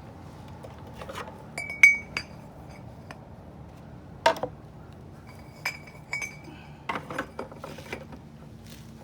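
Light metal clinks and knocks, a dozen or so at uneven intervals, some with a short ring, the loudest about two seconds in: piston pin and pin-seal parts of a Detroit Diesel two-stroke piston being handled and fitted.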